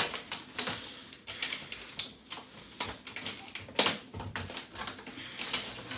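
Irregular clicks and knocks of a broken plastic box fan's parts being handled and knocked about, with one sharper knock near four seconds in.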